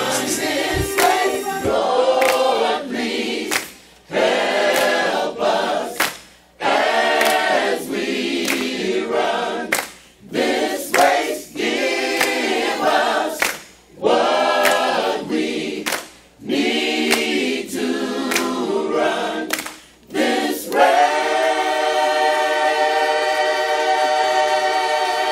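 Background music: a choir singing in short phrases with brief pauses between them, then settling on one long held chord near the end.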